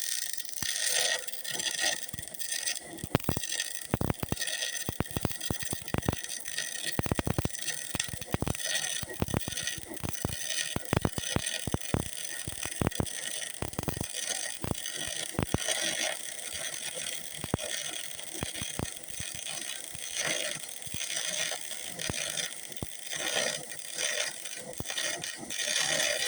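Electric arc welding, an overhead weld in progress: a steady crackling hiss with many sharp pops, the pops thickest in the first half.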